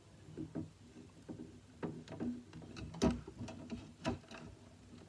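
Scattered light clicks and taps of plastic three-wire sensor cables being handled and plugged into the ports of a VEX robot brain, with one sharper click about three seconds in.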